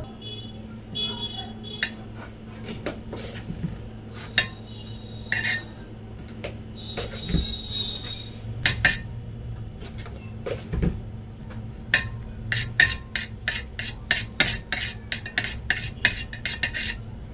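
Metal icing spatula clicking and scraping while whipped cream is spread on a cake on a turntable: scattered sharp clicks with a few short squeaks, then a quick run of clicks over the last five seconds, over a steady low hum.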